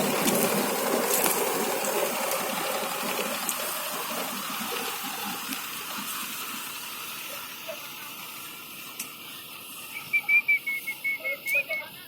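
Hira 785 combine harvester running, its noise fading steadily as it moves away. Near the end comes a quick run of short, high chirps.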